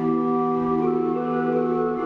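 Pipe organ playing slow, held chords, a few of the notes changing about half a second in and again near the end.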